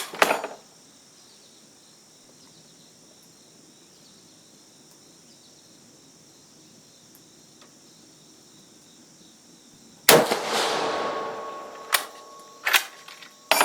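A single rifle shot from a 6.5 mm Carcano M91 TS carbine about ten seconds in, its report echoing and dying away over about two seconds. A few sharp metallic clicks come right at the start and again in the couple of seconds after the shot.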